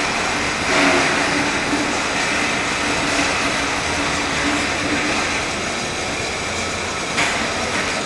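Textile fabric compactor running: a steady machine whir with a faint droning tone that fades out about two-thirds of the way through. Two short, louder bursts of noise come about a second in and near the end.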